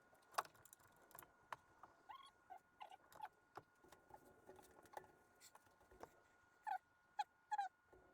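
Scattered light clicks, taps and short squeaky chirps, with a faint steady high-pitched tone underneath; the loudest chirps come in a cluster of three near the end.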